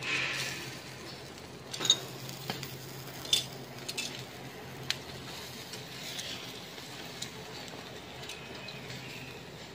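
Glazed tuna jaws sizzling on a wire grill over hot charcoal. A soft hiss is broken by a handful of sharp clicks, the loudest about two seconds in.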